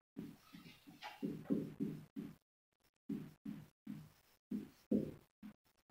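Marker pen writing on a whiteboard: a run of short, low rubbing strokes, several a second, in clusters with brief pauses between words.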